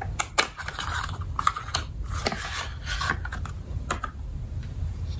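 Irregular small clicks and short rustles of a makeup brush being handled and taken out of its cover.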